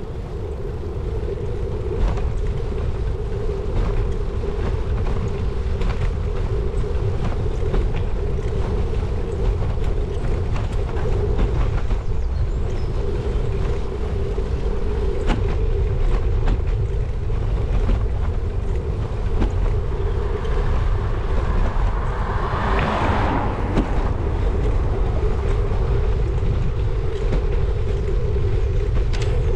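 Bicycle ride on tarmac heard from a bike-mounted camera: wind buffeting the microphone and road rumble, with a steady hum and scattered knocks from bumps in the road. About two-thirds of the way through, a rushing noise swells and fades over a few seconds.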